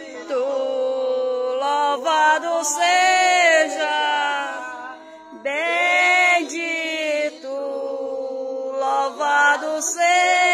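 A group of voices singing a slow religious chant together, in long held notes that rise and fall.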